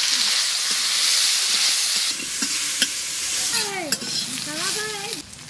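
Turmeric-coated koi fish pieces sizzling as they fry in hot oil in a steel kadai, stirred and turned. The sizzle is loudest for the first two seconds and then eases off.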